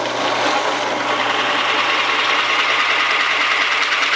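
Drill press motor running while a Forstner bit bores into a pine block: a steady motor hum under a dense, even cutting noise.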